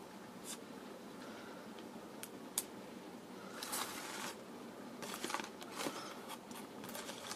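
Paper owner's manual being unfolded and handled: faint crinkles and rustles, with a longer rustle about four seconds in and a cluster of crackles a second or two later.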